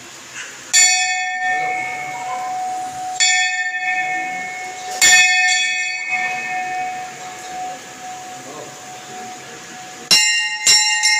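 Hindu temple bells struck by hand. One bell rings out three times about two seconds apart, each strike sounding on and fading, and a second, slightly differently pitched bell is struck twice in quick succession near the end.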